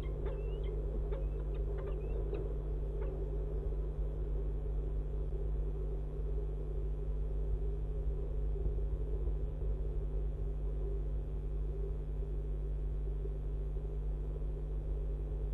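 Steady low hum and rumble throughout. In the first three seconds a few short peregrine falcon calls are heard over it.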